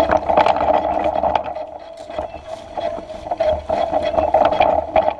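Mountain bike riding fast down a rough dirt trail: a steady buzz throughout, with repeated rattles and knocks as it goes over bumps and roots.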